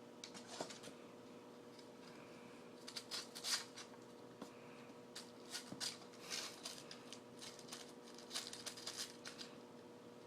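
Kitten pawing and scratching at a puzzle box to get candy wrappers out: faint scattered scratches, taps and rustles in clusters, the loudest about three and a half seconds in.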